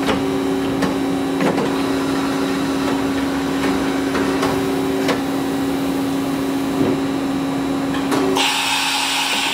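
Kitamura Mycenter 4 vertical machining center's automatic tool changer cycling: a steady machine hum with scattered clicks and knocks as the changer arm swings. Near the end the hum stops and a hiss about a second long follows.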